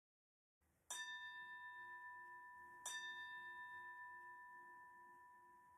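A meditation bell of the singing-bowl kind, struck twice about two seconds apart. Each strike rings on in a long, slowly fading tone, marking the start of the meditation sitting.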